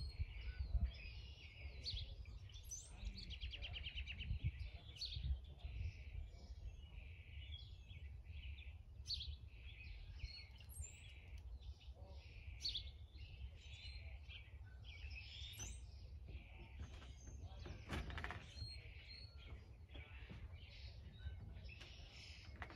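Songbirds chirping and singing faintly, many short overlapping calls and trills, over a low steady rumble, with a brief louder noise about eighteen seconds in.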